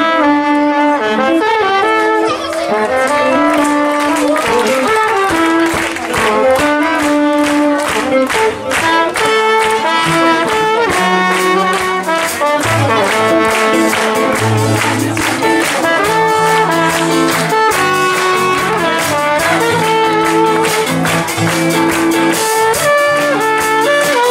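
Live band music: brass, a trumpet most prominent, carries a melody over electric guitar and keyboard, with a lower bass line entering about halfway through and a regular beat.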